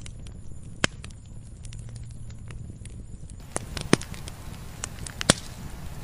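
Wood fire burning: a low steady rumble of flames with scattered sharp crackles and pops from the burning logs. One pop comes about a second in, and a cluster of louder pops follows in the second half.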